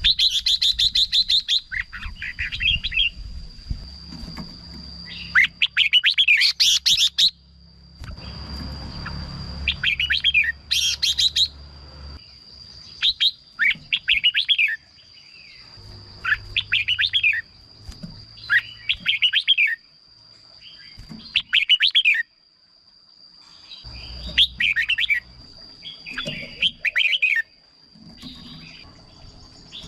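Red-whiskered bulbul singing short song phrases, repeated every one to two seconds.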